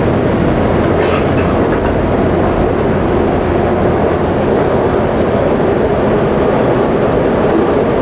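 SEPTA Market-Frankford Line elevated train running, heard from inside the car: steady, loud wheel and track noise.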